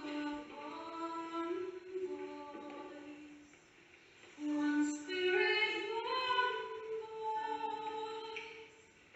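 Unaccompanied female singing in long held notes. One phrase fades out about three and a half seconds in, and a new phrase begins about a second later.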